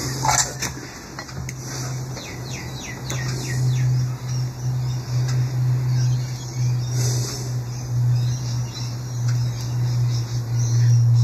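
A steady low hum throughout, with birds chirping a few quick falling notes about two to three seconds in. A sharp click sounds just at the start.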